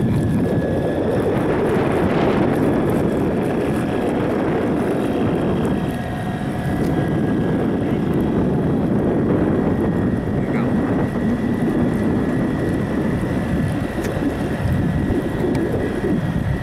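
Wind buffeting the microphone, a loud rumbling noise that swells and dips, with a faint steady high tone underneath.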